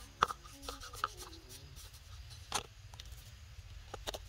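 Hands handling a white cardboard phone box and a cracked iPhone 6: a few sharp taps and clicks, with a brief rubbing scrape about two and a half seconds in.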